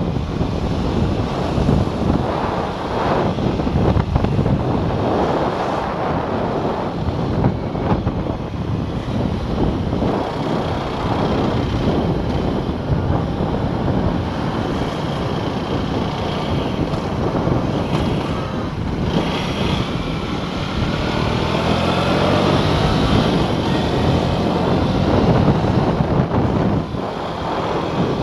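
Aprilia RS4 125 125cc engine running under way, with wind buffeting the helmet-mounted microphone. About twenty seconds in, the engine note climbs in rising sweeps as the bike accelerates.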